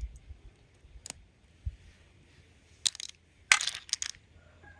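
Steamed clam shells clicking as they are snapped apart by hand, a few separate sharp clicks with a quick cluster about three and a half seconds in.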